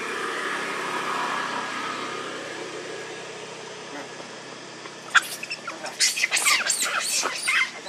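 Long-tailed macaques screaming in a fight: from about six seconds in, a rapid run of shrill, high-pitched shrieks, with a few sharp clicks just before. Earlier a steady background noise swells and fades.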